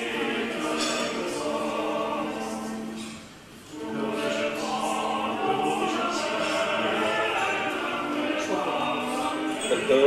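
A choir singing in a classical, operatic style, with a short drop in level about three and a half seconds in.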